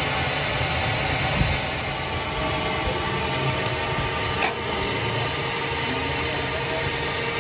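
Workshop machinery running with a steady hum and hiss, with a couple of sharp metallic taps, the clearest about four and a half seconds in.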